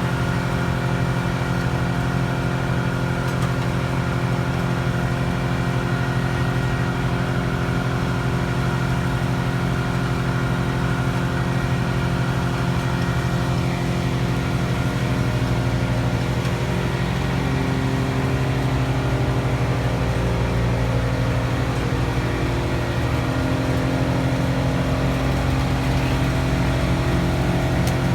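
A heavy machine's engine running steadily with an even drone, its pitch shifting slightly partway through.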